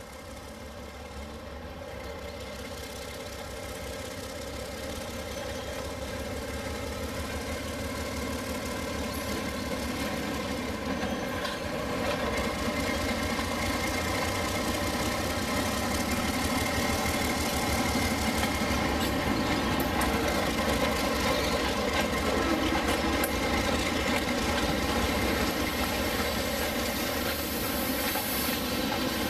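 Diesel engine sound from HO-scale model diesel locomotives, growing louder over the first twelve seconds or so as the train nears, then holding steady. Wheel noise from the passing freight cars comes in near the end.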